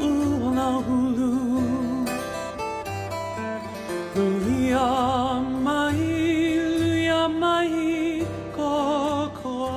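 Background music: a Hawaiian-language song with long, held sung notes over plucked guitar and a steady pulsing bass.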